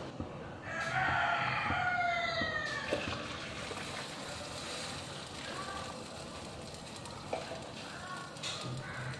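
Water boiling in stainless steel pots and a pan on a gas stove, a steady hiss, with a few light metallic clinks as lids and pans are moved. About a second in, a loud falling squeal lasts for about two seconds.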